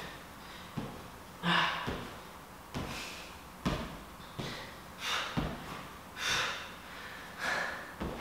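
A man breathing hard through a bodyweight exercise, with forceful exhalations about once a second, in rhythm with the movement. Short light knocks come between the breaths.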